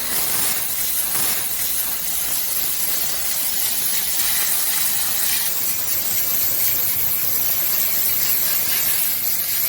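Steady hissing spray of water, as from a garden hose washing down the coils of a central air conditioner's outdoor condenser unit.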